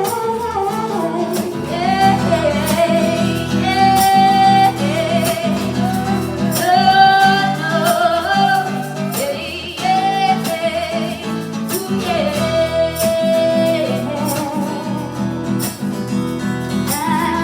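A woman singing long held notes over a strummed acoustic guitar, in a live performance.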